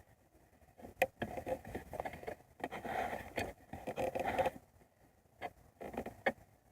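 Hands working on car parts: a sharp click, a few seconds of scraping and rattling as pieces are moved and fitted, then two more clicks.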